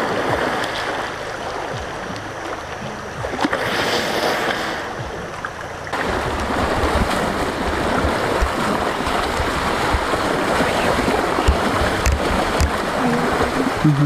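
Shallow river water rushing and splashing as elephants wade and play in it, with a louder burst of splashing about three and a half seconds in.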